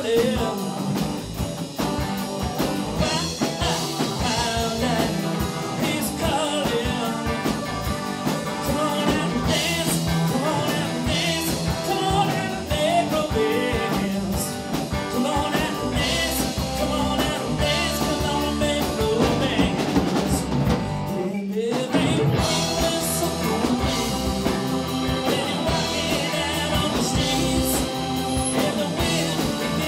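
Live rock band playing: electric guitars, keyboard and drum kit with a lead vocal. The band stops for a moment about two-thirds of the way through.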